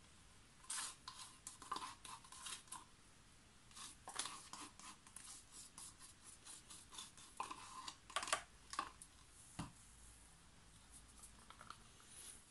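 Faint, irregular scrapes, rubs and light clicks of a stirring stick working acrylic paint out of small plastic cups into a silicone flip cup, with the cups being handled.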